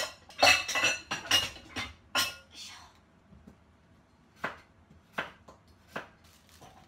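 Kitchen clatter of dishes and utensils for the first couple of seconds, then three sharp knocks of a knife chopping on a wooden cutting board, evenly spaced under a second apart.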